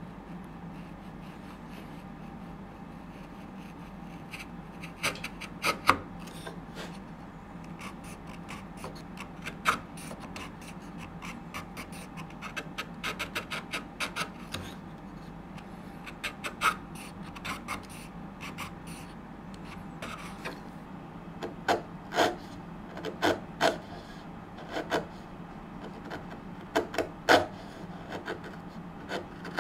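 Bench chisel paring hardwood by hand: a run of short, irregular scraping cuts as the edge shaves slivers off the dovetail's faces. The cuts come sparsely at first and more often from about five seconds in.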